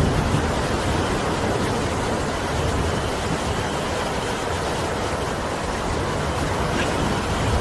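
Steady rain and wind: an even, unbroken hiss with a low rumble underneath.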